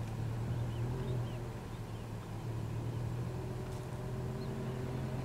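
A vehicle engine idling with a steady low hum, with a few faint high chirps over it.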